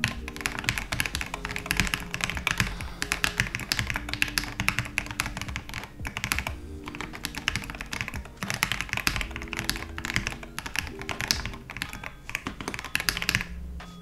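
Fast typing on a mechanical keyboard with lubed Gateron Yellow linear switches under SA-profile keycaps: a dense, unbroken run of keystroke clacks.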